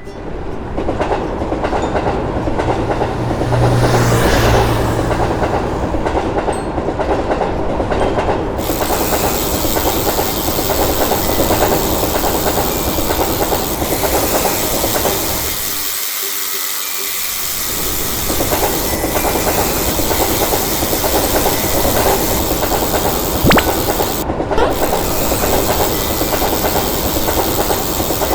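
Train running past on the rails, its wheels clattering over the rail joints amid a loud rushing noise that goes on for nearly half a minute. The low rumble thins out briefly about two thirds of the way through.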